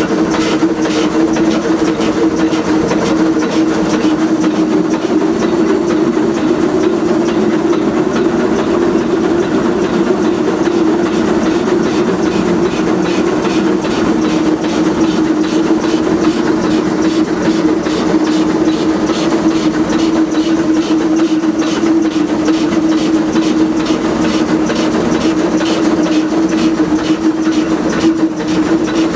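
Oil-fired Shay geared steam locomotive under way, heard from inside the cab: a quick, even run of exhaust beats over a steady hum.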